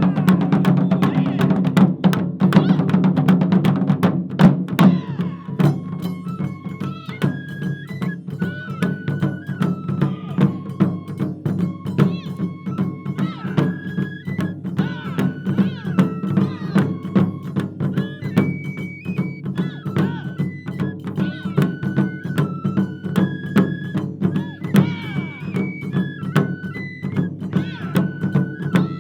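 Japanese taiko drum ensemble playing, with dense, fast strikes for the first few seconds. After that the drumming turns lighter and steady under a high melody of held notes that step up and down.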